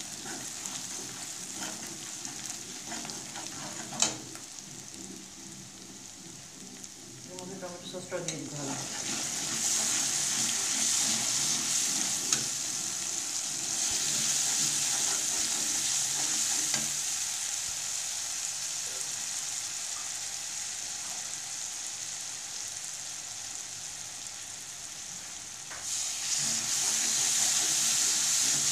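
Spiced onion masala with turmeric, chilli powder and salt sizzling in hot oil in a wok while a spatula stirs and scrapes it, the masala being fried down. The sizzle grows louder about eight seconds in and again near the end, with one sharp knock about four seconds in.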